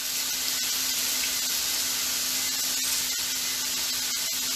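Breaded shrimp frying in hot oil: a steady sizzle with scattered sharp pops, over a faint low steady hum.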